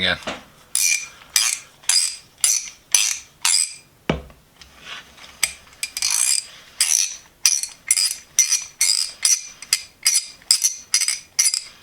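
Restored ratchet wrench, freshly cleaned and oiled after being seized, swung back and forth. Its pawl clicks in quick rasping bursts about two or three times a second, showing the mechanism works again. A single deeper knock about four seconds in.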